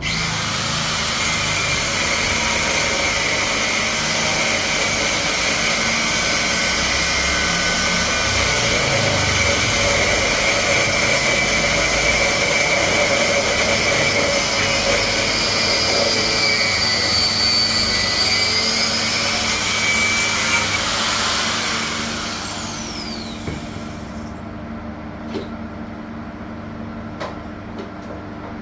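High-speed electric motor running steadily with a high whine for about twenty seconds, then switched off and spinning down, its whine falling in pitch. A few faint ticks follow.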